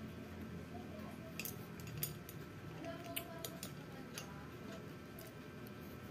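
Faint, scattered clicks of chopsticks tapping against a glass dish and the hard-shelled M&M's candies as they are groped for and picked at.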